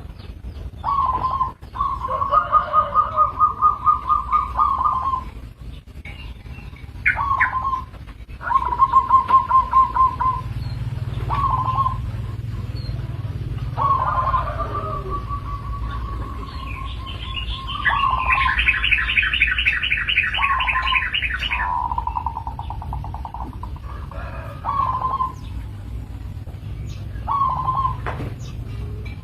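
Zebra doves (perkutut) giving repeated calls of rapid, trilling coos, some lasting about three seconds. About eighteen seconds in, a higher-pitched fast trill joins for about three seconds.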